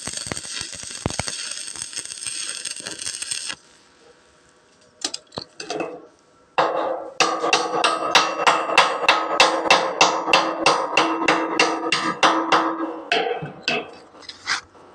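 Welding arc crackling steadily, cutting off suddenly after about three and a half seconds. A few seconds later comes a hammer striking metal in a fast, even run of about three blows a second, each with a ringing tone, which stops shortly before the end.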